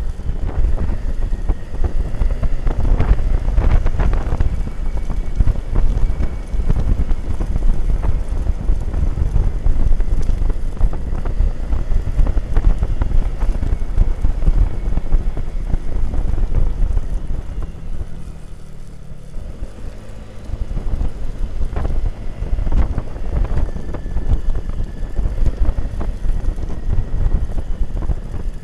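Wind buffeting the microphone on a moving Yamaha scooter, a loud, rough rush with the scooter running underneath it. The noise eases off for a couple of seconds about two-thirds of the way through, then returns.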